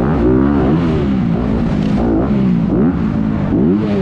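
Single-cylinder dirt bike engine heard close up from on the bike, revving up and down over and over as the throttle is opened and chopped through the jumps.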